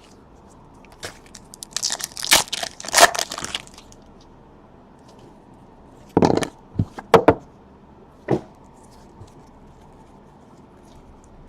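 Plastic wrapping on trading cards crinkling and tearing for about two seconds, followed by a few sharp taps and clicks as the cards are handled.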